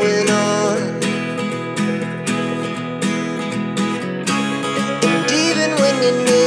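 Background music with strummed acoustic guitar and a steady rhythm.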